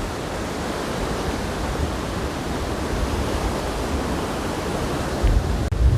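Stormy sea surf washing up the beach, a steady rushing noise, with wind buffeting the microphone in low rumbling gusts that grow stronger near the end.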